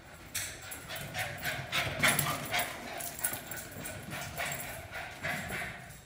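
Footsteps walking down a hallway: a run of irregular knocks, two or three a second.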